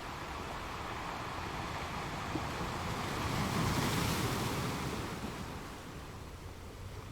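Ocean waves washing in: a steady surf hiss that swells as one wave breaks about halfway through, then eases back.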